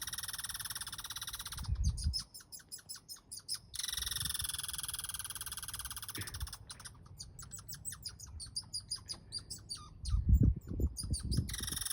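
A steady, high-pitched chirring chorus of calling animals. Twice it gives way to runs of fast, evenly spaced chirps, with low thuds about two seconds in and near the end.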